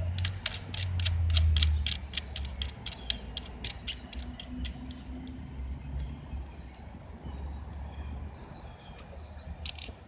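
Rapid, fairly regular clicking, about four to five sharp clicks a second, thinning out to scattered clicks after about four seconds, over a low rumble that is loudest in the first two seconds.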